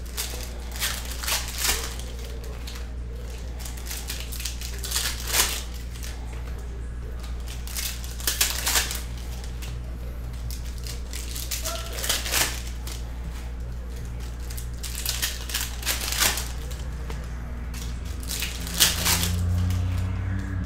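Foil trading-card pack wrappers being torn open and crinkled, with cards handled between tears. The crinkly tearing comes in short bursts a few seconds apart, over a steady low hum.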